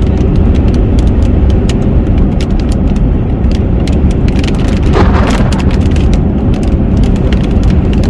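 Car driving in heavy rain, heard from inside: a steady road and engine rumble with large raindrops ticking sharply and irregularly on the glass and body, and a brief swish about five seconds in.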